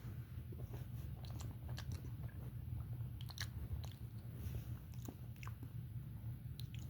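Close-up chewing and biting of a bacon, egg and cheese sandwich, with scattered small crunches from the crispy bacon, over a steady low hum.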